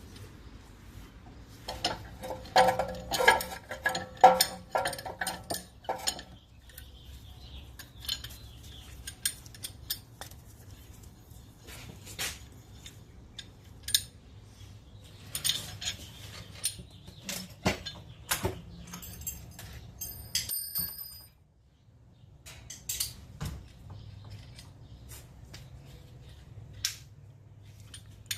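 Metal hand tools clicking and clinking against the brake caliper as a wind-back tool is fitted and turned to push the rear caliper piston back in, with a dense run of ringing clinks a few seconds in and scattered single clicks after.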